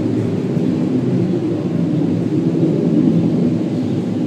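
A steady low rumbling drone from the sky with a faint hum running through it. It sounds like an airplane passing by somewhere up high, though no aircraft is taken to be the source.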